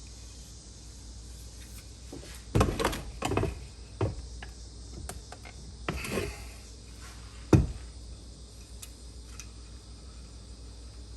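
A few separate knocks and short rubbing clatters from handling a bent 20-inch BMX wheel and its spokes while truing it by hand. The sharpest knock comes about two-thirds of the way through, over a faint steady low hum.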